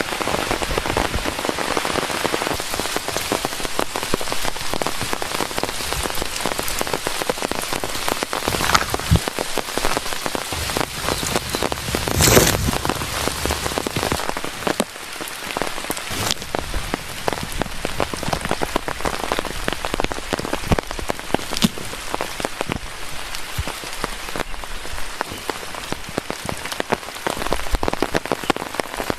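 Steady rain falling, a dense patter of drops hitting the ground and foliage, with one louder thump about twelve seconds in.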